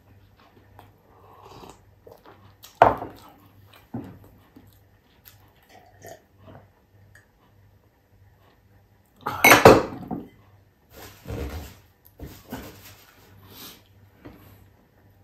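A person eating close to the microphone: chewing and mouth sounds, with a sharp loud sound a few seconds in. A louder sound about a second long follows just after a drink, with smaller mouth and dish sounds after it.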